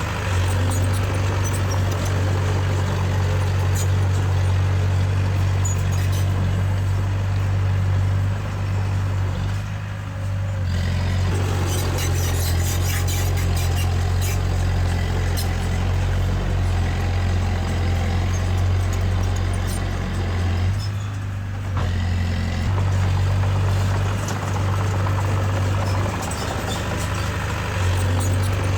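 Diesel engine of a Komatsu D20A crawler bulldozer running steadily, easing off briefly twice, about a third and two-thirds of the way through.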